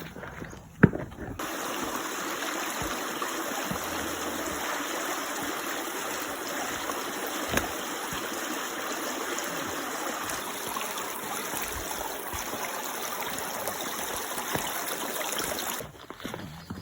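Steady rush of running water, like a stream, that starts and stops abruptly, after a single sharp knock about a second in.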